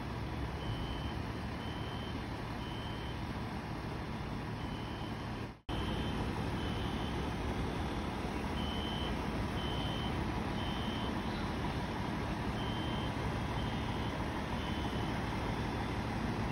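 Steady low rumble of heavy utility trucks and equipment running, with a truck's reversing beeper sounding in short runs of about three beeps, each a little over half a second apart. The sound breaks off for an instant about five and a half seconds in.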